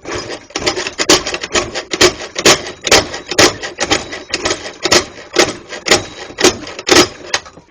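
Scooter kick-starter kicked over and over, about two strokes a second, each stroke a loud clack and rattle. The ratchet's worn, rounded teeth slip instead of catching and turning the engine.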